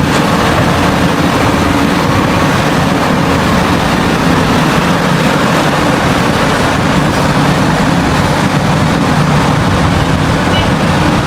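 Heavy diesel mining machinery running steadily under load, a loud, unbroken mechanical rumble with a dense noisy hiss over it: the sound of a large hydraulic excavator working in a mine pit.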